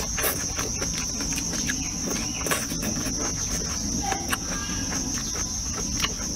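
Close-up chewing and eating sounds, with frequent small sharp clicks of chopsticks against a bowl. Behind them runs a steady, high-pitched insect drone.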